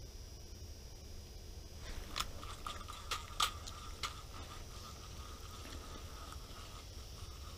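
Several sharp clicks from an ice-fishing reel being handled, then a faint steady whir of the reel free-spooling as line pays out down the hole, stopping near the end.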